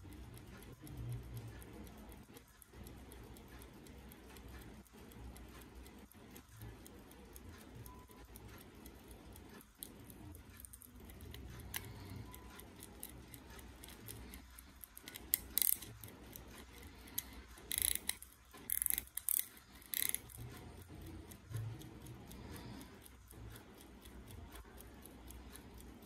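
Westclox pin-lever pocket watch ticking steadily and fast, close to the microphone. A few louder bursts of noise about two-thirds of the way through come from the watch being handled in the fingers.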